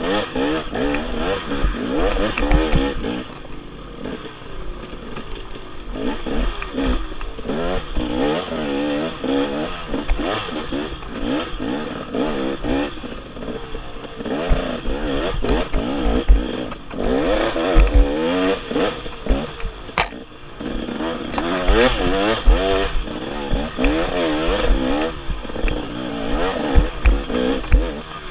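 Dirt bike engine revving up and down again and again, pitch rising and falling every second or so, heard close from the rider's helmet, with occasional knocks from the bike over rough ground.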